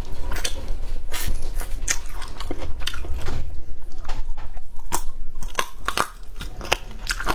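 A person chewing and biting food close to the microphone: an irregular run of sharp crunchy clicks and wet smacks, several a second.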